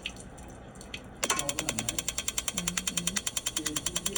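Propane water heater's electronic igniter starts sparking about a second in: a rapid, even clicking that keeps going while the burner fails to light. Before the clicking starts, water runs from the open faucets.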